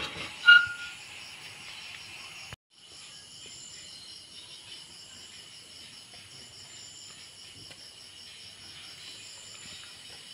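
Insects chirping steadily in a fast, pulsing high trill. Near the start come two loud metal clanks, the second ringing briefly, and the sound cuts out for a moment about two and a half seconds in.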